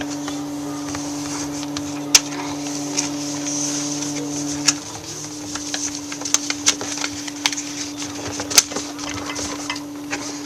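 A sheet of A4 paper being folded and creased by hand: scattered crackles and rustles, busier in the second half. Under it runs a steady low electrical hum, part of which stops about five seconds in.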